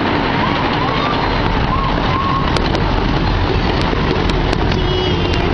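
Gasoline-powered 16-inch-gauge miniature train running along its track: a steady rumble from the engine and the wheels on the rails, with sharp clicks here and there.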